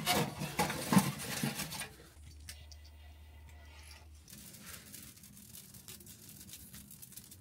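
Dry grass and twig tinder rustling and crackling as it is pushed by hand into the firebox of a small metal wood stove, dense and loudest for the first two seconds, then giving way to a much quieter steady background.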